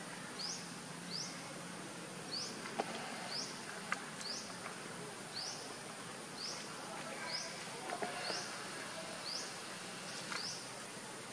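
Outdoor wildlife sounds: a short rising chirp repeated about once a second over a steady high insect hiss.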